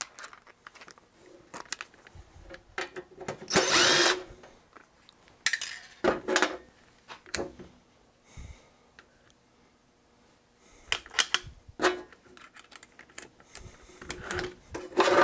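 Cordless power screwdriver running in short bursts, the longest about four seconds in, backing screws out of an electronic instrument's metal chassis. Near the end come sharp clicks and clatter of screws and metal parts being handled.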